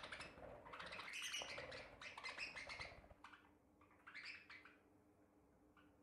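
Budgerigars chirping and warbling quietly: a busy run of short, high chirps over the first three seconds, then a shorter burst about four seconds in.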